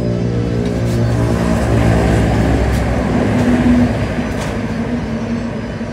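An engine running, growing louder to its peak about three to four seconds in and then easing off.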